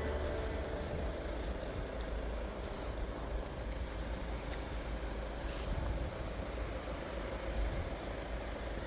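Steady low rumbling outdoor noise with a faint hiss and a few light clicks on top.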